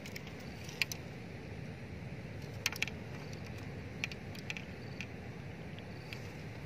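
Steady low outdoor noise, like wind buffeting the microphone, with a few short sharp clicks scattered through it: a single one about a second in, a close pair near the middle, and several more later on.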